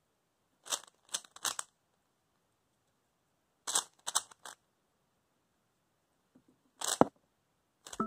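Stickerless plastic 3x3 Rubik's cube being turned by hand, its layers clicking as they snap round. There are three clicks about a second in, a few more around four seconds in, and a single louder click near the end.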